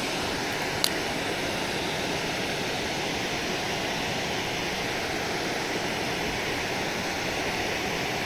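Steady rushing water of a river spillway. A single short click sounds about a second in.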